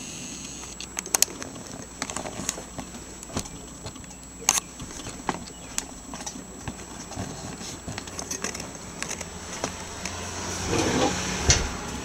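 Handling noise from a handheld camera: scattered clicks and light knocks with rubbing, which grows louder about ten seconds in.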